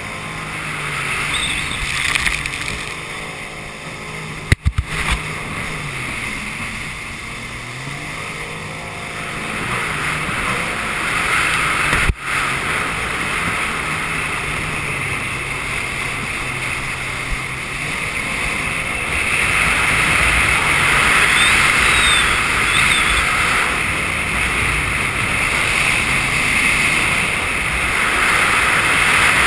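Jet ski engine running under way, its pitch rising and falling with the throttle, over a rush of water and wind on the onboard microphone. Two sharp knocks break in, about four and a half and twelve seconds in, and the run gets louder over the last ten seconds.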